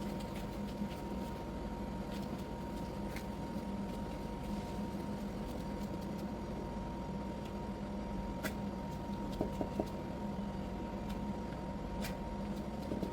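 A steady machine hum with two constant tones, one low and one higher, and a few faint light clicks scattered over it.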